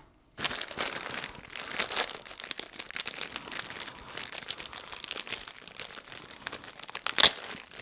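Thin clear plastic packaging bag crinkling and rustling as hands unwrap it, with one louder crackle about seven seconds in.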